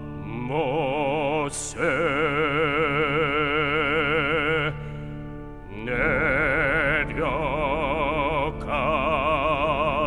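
Male pansori singer drawing out the word 'Moses' (모세) in long held notes with wide, slow vibrato, in two phrases with a short break about five seconds in, over a steady instrumental accompaniment.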